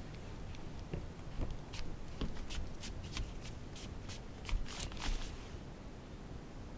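A quick run of sharp clicks and scuffs on a hardwood floor, about four a second, from about two seconds in until just past five: the running footfalls of a chase, a cat scampering away with a person following. A few duller thuds come in the middle.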